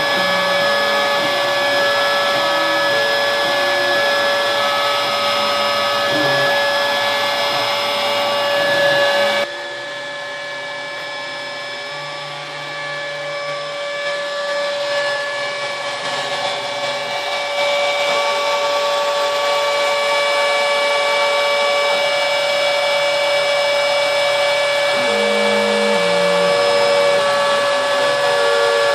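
Homebuilt CNC machine carving wood: the spindle gives a steady high whine, and under it the stepper motors' tones step up and down in pitch as the axes move. The whole sound drops in level about a third of the way in and comes back up just past the middle.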